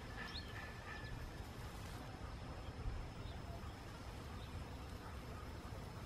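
Outdoor ambience: a steady low rumble on the microphone, with a few faint bird chirps in the first second.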